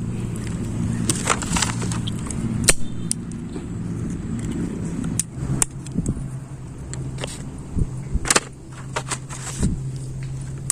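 Scattered clicks and light knocks of small hard parts being handled, about eight of them, over a steady low hum.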